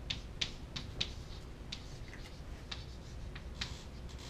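Chalk writing on a chalkboard: a string of short, irregular taps and scratches as the strokes go on.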